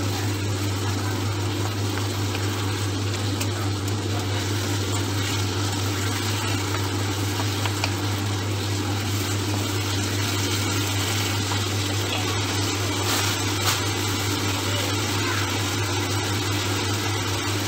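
Minced beef in a taco spice and water sauce simmering and sizzling in a frying pan as it is stirred with a wooden spoon, with a few light scrapes. A steady low hum runs underneath.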